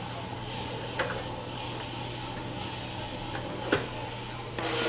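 FUJI ROYAL drum coffee roaster running at the end of a roast, with a steady hum and two sharp metal clicks as its sample trier and door are worked. About four and a half seconds in, a louder rush begins as the drum door opens and the roasted beans start pouring out into the cooling tray.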